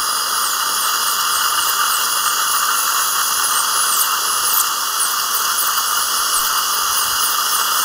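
High-speed air-turbine dental handpiece running steadily, a high whine over a hiss, as its bur sections the front of a horizontally impacted lower wisdom tooth.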